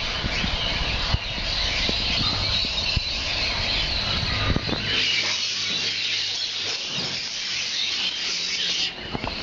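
Many small cage birds chirping and chattering at once in a breeding room, a dense high-pitched din, with a low hum underneath that thins out about halfway through.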